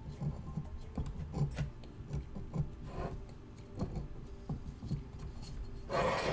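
A small metal carving tool scraping and picking at a hard plaster face cast in short scratchy strokes, carving the eyelash detail off around the eyes. A louder, longer scrape comes near the end.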